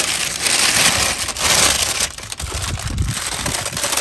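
Aerosol spray paint can hissing as paint is sprayed onto brake calipers, one long spray with a short break about two seconds in and a weaker spray after it.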